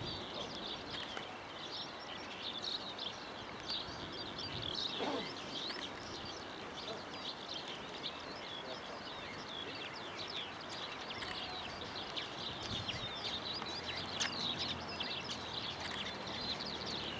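Many small birds chirping densely and continuously in high, short calls over a steady outdoor background hiss.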